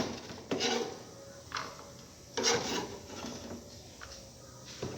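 Kitchen knife on a cutting board while diced onion is handled: a few irregular knocks and scrapes, not a steady chopping rhythm.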